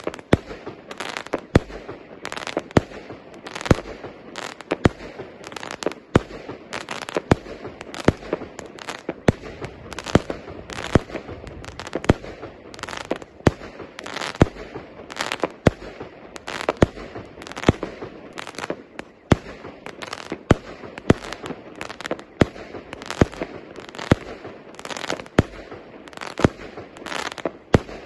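A 36-shot, 1-inch-calibre fireworks cake firing in rapid succession: sharp bangs of shells launching and bursting, roughly one to two a second, over a continuous crackle and hiss.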